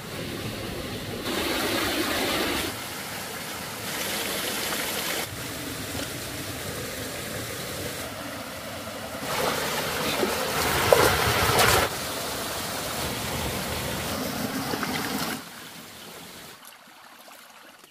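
Water of a shallow forest stream running and trickling over rocks, changing abruptly in level every few seconds as the clips change. It gets louder with stirring and splashing about halfway through, then drops much quieter near the end.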